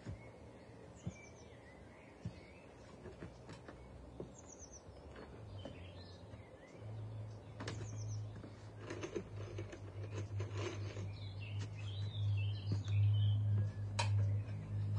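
Birds chirping faintly, with scattered light knocks and clicks. About halfway through, a low steady rumble comes in and grows until it is the loudest sound.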